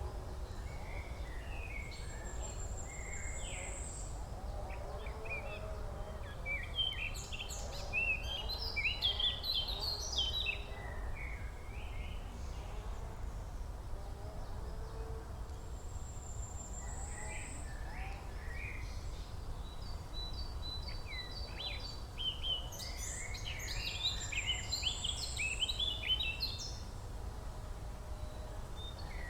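Songbirds singing, with two spells of busy, quick twittering song about a third of the way in and again near the end, and a thin high whistle held briefly in between. A steady low rumble lies underneath.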